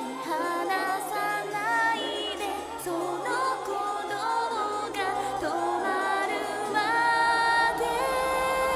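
Anime opening theme song: music with singing, ending in a long held note near the end.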